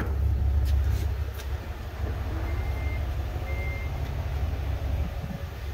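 Steady low rumble with two short, high electronic beeps about a second apart near the middle.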